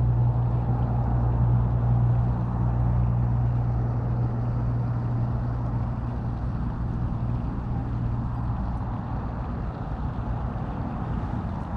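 A vehicle engine's steady low hum, fading away over several seconds, over a haze of traffic noise.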